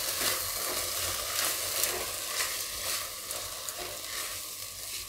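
Washed rice and split moong dal sizzling as they fry in hot ghee in a pressure cooker pot, stirred with a silicone spatula. The spatula adds irregular scraping strokes against the pot over the hiss.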